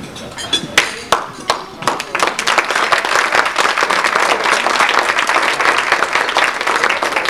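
Crowd of guests applauding. A few separate sharp claps come first, then the whole room joins in about two seconds in and keeps clapping steadily.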